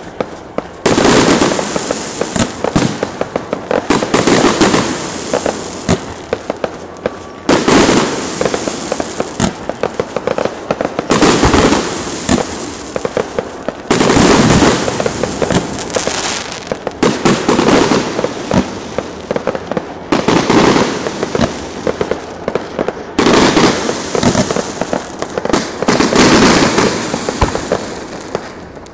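Electrically fired fireworks and firecrackers going off in dense, rapid crackling volleys, surging loudly about every three seconds.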